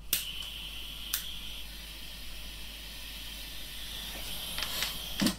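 Steady hiss with a few sharp clicks: one at the start, another about a second in, and a short cluster near the end.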